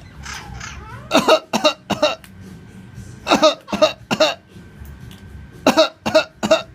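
Pet cockatoo mimicking a person's cough, in three short bouts of three or four coughs each.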